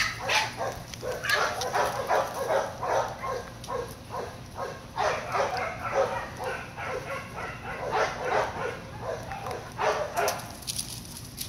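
Dog barking during play in quick runs of about three barks a second, with short pauses between the runs.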